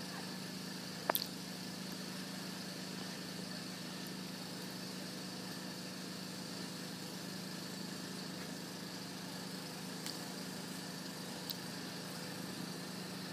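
Steady low hum of background noise, with one sharp click about a second in and two faint ticks near the end.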